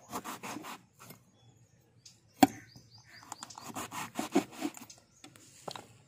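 Long kitchen knife slitting whole brinjals crosswise for stuffing, the blade rasping through skin and flesh and scraping the hard surface beneath in quick repeated strokes. One sharp knock about two and a half seconds in.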